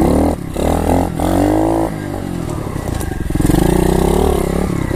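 Pit bike engine revving up and down as it is ridden off-road: the pitch climbs about a second in, drops back, then climbs again near the end.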